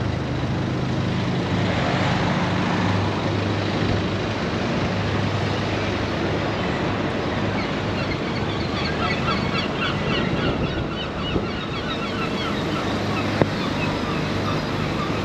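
Outdoor harbour ambience: a steady low engine hum over traffic-like noise. A flurry of short bird calls runs from about eight seconds in for several seconds, and there is a single sharp tap near the end.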